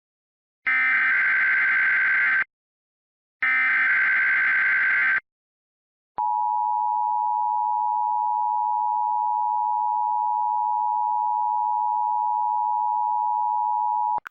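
Emergency Alert System tones: two short bursts of the SAME digital header, a harsh buzzing data screech under two seconds each, which encode a tsunami warning alert. They are followed about a second later by the EAS attention signal, a steady two-tone 853/960 Hz beep held for about eight seconds that cuts off just before the voice message.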